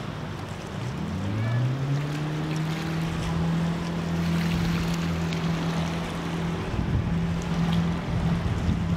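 Boom boat engine revving up about a second in and then running steadily while the boat pushes through the water, over a constant rush of river water and wind.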